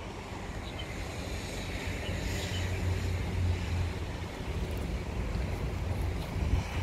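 Outdoor street background: a low, fluctuating rumble of wind on the microphone mixed with passing road traffic, slowly getting louder, with a brief rise in hiss about two to three seconds in.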